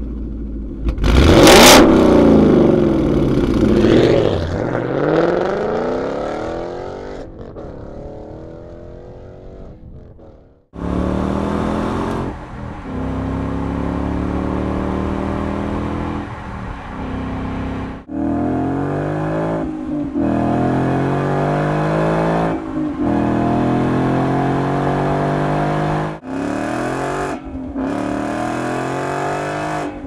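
2015–2017 Ford Mustang GT's 5.0-litre V8 exhaust. In the first ten seconds a loud crack is followed by the car passing by at speed and fading away. The engine then runs hard under acceleration in a series of short runs, each cut off by a brief drop.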